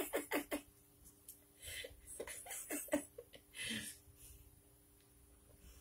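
A woman laughing, a quick run of laughs at the start trailing off into a few soft chuckling breaths, then faint room tone.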